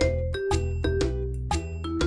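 Background music: bright, bell-like struck notes in a regular beat over a steady bass line.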